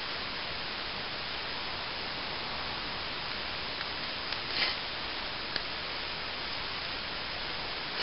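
Steady, even hiss with a couple of faint short clicks about halfway through.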